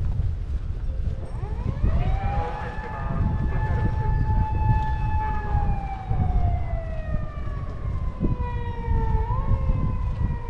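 A siren wailing: it rises quickly about two seconds in, holds, then slowly falls in pitch over several seconds, with a brief upward step near the end. Low street rumble and wind noise run underneath.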